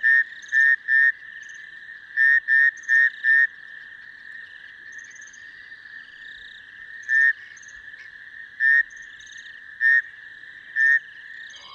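Male rain frogs calling after rain to attract females. Short, loud, pulsed calls ring out over a steady chorus of other calling frogs: a quick run of calls at first, then single calls every second or so.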